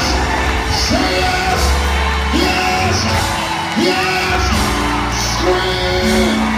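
Live gospel praise music: held keyboard chords that change about once a second over a steady bass line, with yells and whoops from the congregation.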